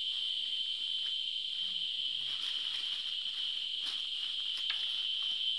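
Steady, high-pitched chorus of insects buzzing without a break in dry forest. A few faint clicks sound over it.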